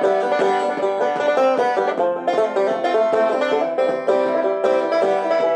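Banjo picked steadily between sung verses, a run of quick plucked notes in a folk song.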